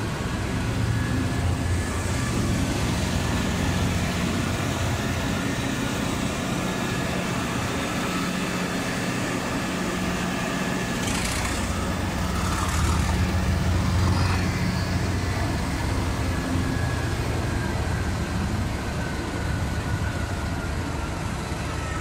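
Class 37 diesel-electric locomotive's English Electric V12 engine running with a steady low rumble; the engine note swells for a couple of seconds around thirteen seconds in. Two short hissing bursts come at about eleven and twelve and a half seconds.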